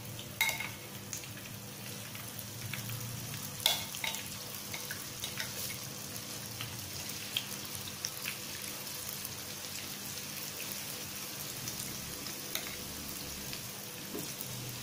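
Chicken wings deep-frying in hot oil on their second fry: a steady sizzle with scattered pops, two sharper ones about half a second and nearly four seconds in.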